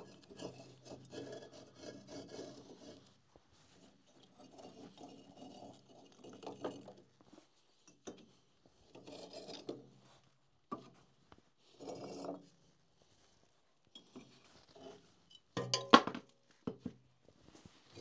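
Stones scraping and rubbing against the floor of a newly built masonry fireplace oven as they are pulled out, in several separate bouts, then a few sharp knocks of stone on stone near the end.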